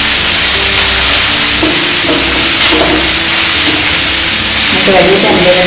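Chopped onions, green chillies and tomato sizzling in hot oil in a frying pan while being stirred with a wooden spatula, with background music of held notes underneath.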